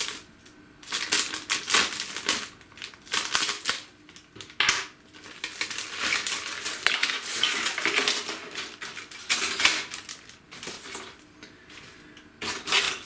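A thin plastic bag crinkling as it is opened and handled, with hard plastic model-kit parts clacking against each other in irregular bursts.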